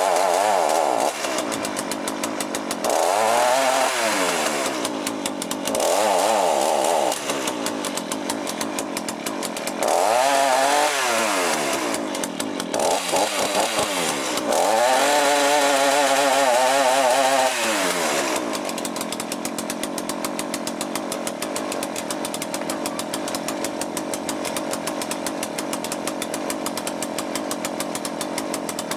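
Two-stroke chainsaw engine with a rebuilt Walbro carburettor, revved up about six times with the pitch climbing and falling back, the longest rev held for a few seconds, then settling to a steady idle about two-thirds of the way through. The revving tests the high-speed mixture, which had been set very lean and is being richened so the saw stops bogging.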